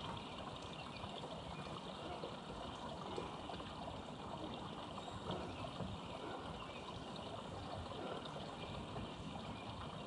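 Steady outdoor background noise: an even rushing sound with no distinct bird calls standing out.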